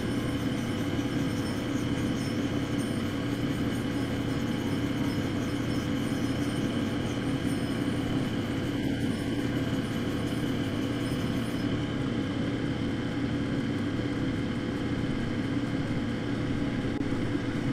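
Lapidary cabbing machine's water-cooled diamond wheel running steadily, with motor hum and water spray, as a dopped fused-glass cabochon is ground against it. A faint high rasp stops about two-thirds of the way through.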